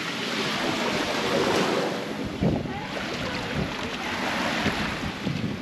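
Ocean surf washing onto a rocky shore, swelling and easing, with wind buffeting the microphone from about two seconds in.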